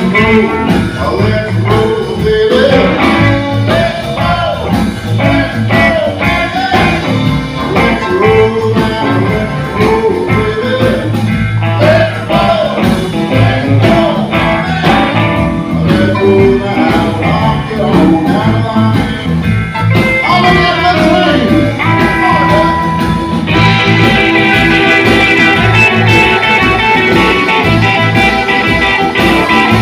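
Live blues and rock and roll band: a man singing over piano, electric guitar and drums. About 23 seconds in, the sound turns brighter and denser as an electric guitar solo comes forward.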